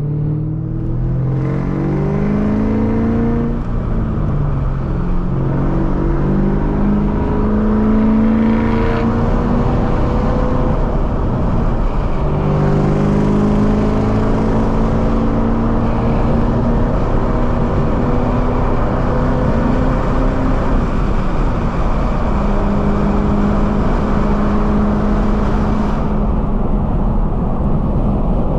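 2003 Mustang SVT Cobra's supercharged 4.6-litre V8 accelerating onto a highway. The engine climbs in pitch, drops at a gear change a few seconds in and again about twelve seconds in, then holds a steady pitch at cruising speed.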